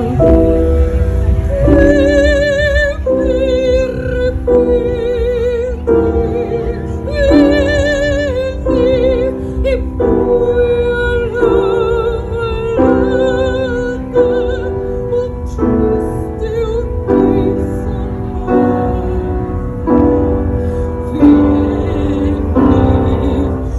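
Operatic singing with wide vibrato, held notes that change about every second, over piano accompaniment and a steady heavy bass.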